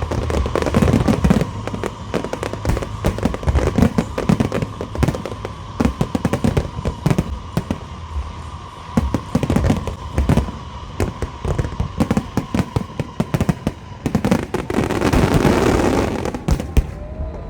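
Aerial fireworks going off in rapid, overlapping bangs and pops, with a longer crackling rush about fifteen seconds in.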